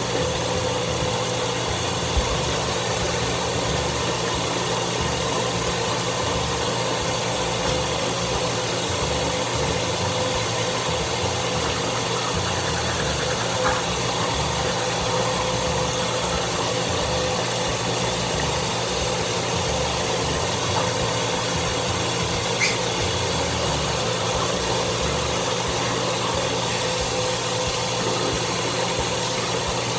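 Bathroom ceiling exhaust fan running, a steady hum with a constant tone. A few small clicks stand out.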